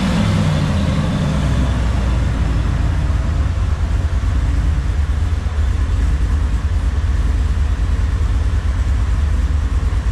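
Ford SVT Lightning's supercharged 5.4-litre V8 idling steadily, with a loud, low exhaust note through long-tube headers.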